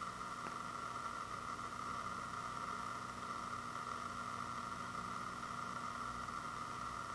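Steady background hiss with a faint low hum running underneath; no distinct sounds stand out.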